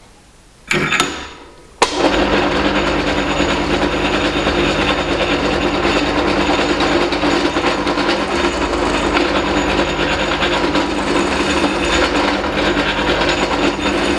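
A workshop machine's electric motor starts: a short burst that dies away, then a sharp click, then steady loud running with a constant hum and a busy rushing noise.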